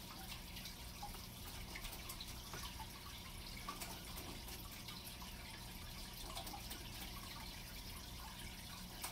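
Aquarium water bubbling and trickling steadily from the aeration and filter, with a low steady hum underneath.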